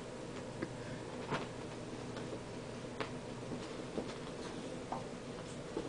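Steady motor hum, likely the ceiling fan running, with about half a dozen light clicks and taps at uneven intervals.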